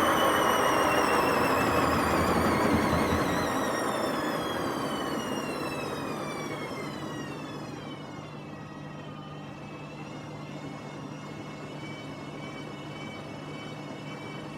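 Hotpoint WMA50 washing machine winding down from its spin: a rumble and a whine falling steadily in pitch as the drum slows over about eight seconds, then a quieter steady hum. The drum bearings are badly worn and noisy.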